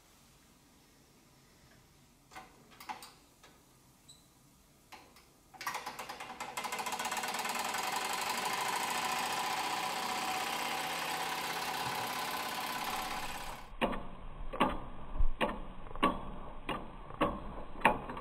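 Wilesco toy steam engine running. About six seconds in, a steady hiss of steam starts while the flywheel spins fast. After about fourteen seconds it gives way to a run of sharp, regular strokes, about two to three a second.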